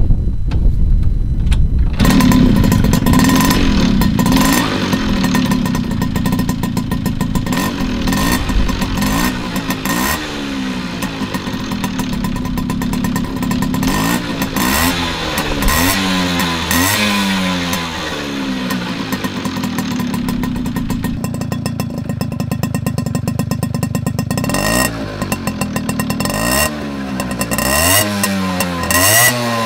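Tomos A35 moped's 49 cc two-stroke single-cylinder engine, breathing through a Phantom RS exhaust, starts about two seconds in and is then revved up and down over and over on its stand, with a short spell of steadier running in between. The exhaust note is loud and sporty, which the owner puts down to no damping wool in the silencer.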